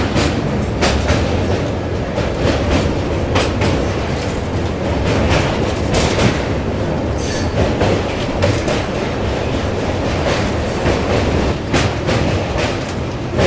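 Indian Railways passenger train running across a steel truss bridge, heard from an open coach door: a steady loud rumble of wheels on the rails, broken by irregular sharp clicks and clatters from the wheels.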